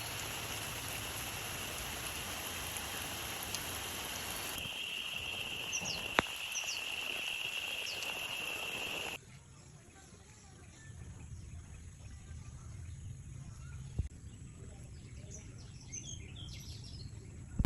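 Outdoor nature ambience: a steady high-pitched tone over a background hiss, with a few short bird chirps. About nine seconds in it cuts to a quieter, low background with a few more scattered bird chirps.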